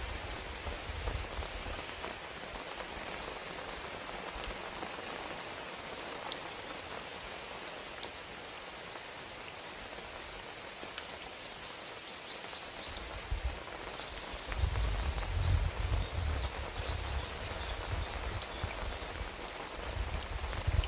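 Steady rain falling, with faint short bird chirps high above it. About two-thirds of the way through a low rumble comes in under the rain and stays.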